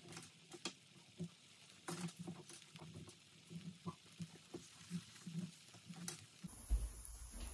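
Pancake batter frying in oil in a nonstick pan: faint, irregular crackles and small pops. A steady low hum comes in near the end.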